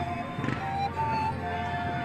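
Music with long held notes.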